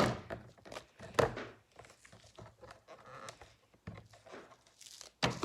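Handling noise from picking hair out of a Shark vacuum's brush roll: a sharp knock at the start and another about a second in, then scattered light clicks and faint scraping.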